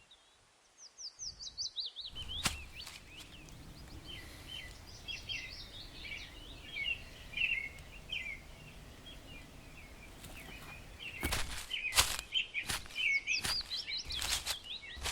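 Birds chirping, short high notes over a low background rumble, with a falling run of notes about a second in. A sharp click comes about two and a half seconds in, and a run of sharp clicks or knocks fills the last few seconds.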